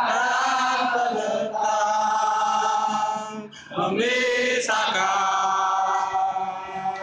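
Large crowd of football supporters singing a chant together in unison, in long held phrases with two short breaks between them.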